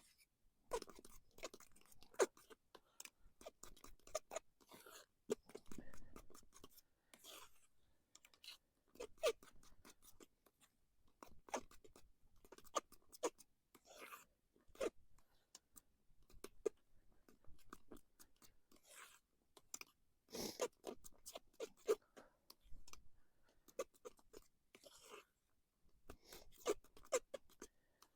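A utensil stirring and whipping mashed potatoes in a pot: a steady run of irregular scraping and clicking strokes against the pot.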